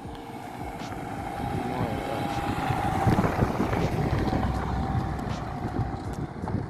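A car driving past, its engine note and road noise growing to a peak about three seconds in, then fading slowly as it moves away.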